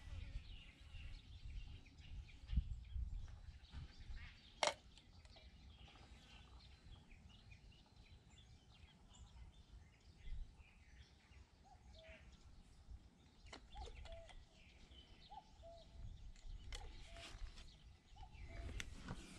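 Faint outdoor ambience with birds chirping now and then, a short series of brief calls in the second half, over a low rumble. There is one sharp click about five seconds in.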